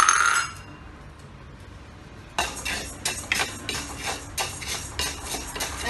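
A metal clank with brief ringing at the start, then a spatula scraping and stirring toor dal dry-roasting in a metal kadai, in quick repeated strokes about three a second from about two and a half seconds in.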